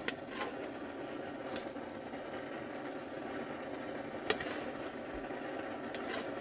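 Kitchen knife cutting a tomato on a metal plate: a few sharp clicks as the blade strikes the plate, the loudest about four seconds in, over a steady engine-like hum.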